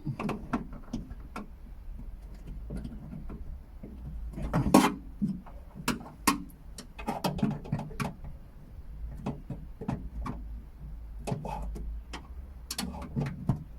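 Irregular plastic clicks and knocks as a car's trim handle and its retaining clips are pushed and worked by hand to release them.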